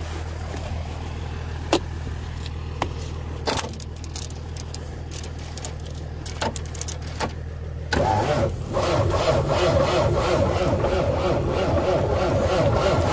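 Low steady engine hum with scattered knocks and clanks. About eight seconds in, a louder engine starts up and keeps running roughly.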